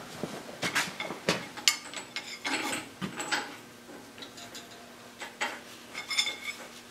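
Irregular metal clicks and knocks from hands and tools working the rod and gland end of a Caterpillar 225 excavator's boom hydraulic cylinder, with a few sharper ringing clinks near the end. A faint steady hum runs underneath.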